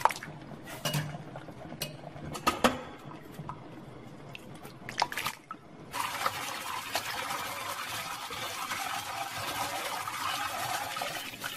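Boiled bamboo shoots tipped from a wire strainer into a basin of cold water, with scattered splashes and clicks. About six seconds in, a kitchen tap starts running, water pouring steadily onto the shoots in the basin as they are rinsed by hand.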